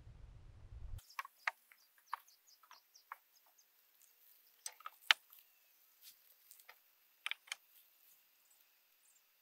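Scattered sharp clicks and crinkles of plastic wrapping being handled, the loudest about five seconds in. A low rumble opens the clip and cuts off about a second in.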